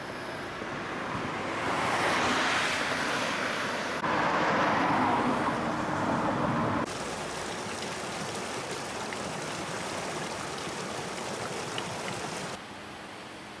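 Road traffic noise: a car swishes past about two seconds in, then a louder steady rush with a low engine hum, which cuts off abruptly to a quieter wind-like hiss and drops again near the end.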